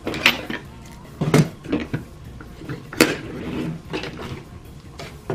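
Handling clatter on a tabletop: plastic revolver magazines, a metal pellet tin and a small carved wooden box being moved and set down, including the box's lid being shut. Several sharp knocks and clicks come at uneven intervals, with some scraping between them.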